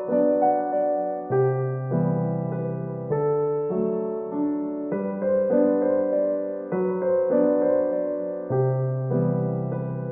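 Background music: a slow piano piece with sustained chords changing about every second or two.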